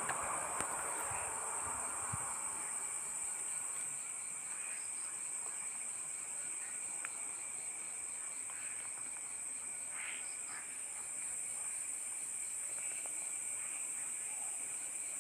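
Crickets chirping steadily in the background as a continuous high-pitched trill, with a few faint ticks.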